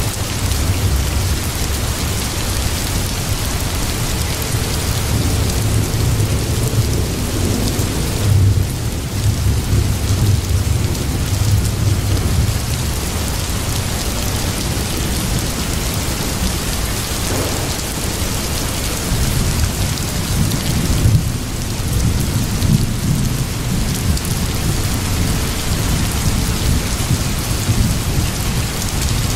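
Steady rain hissing, with low thunder rumbling under it and swelling a couple of times.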